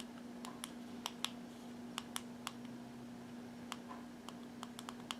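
Buttons of a Unication NP88 numeric pager being pressed to set the date: about a dozen small sharp clicks at an uneven pace, some in quick pairs.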